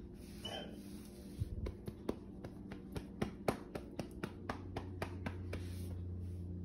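A hand patting a dog's body through a fabric shirt: a run of quick, light slaps at about four a second, lasting about four seconds.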